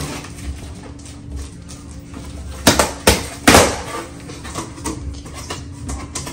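Cardboard box being torn open by hand, packing tape and flaps ripping: three sharp tearing sounds close together about three seconds in, the last one a little longer.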